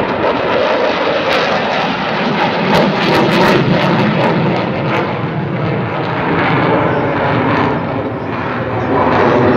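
F-16 fighter jet flying overhead, its jet engine a loud, steady roar of noise with a crackle through the middle seconds.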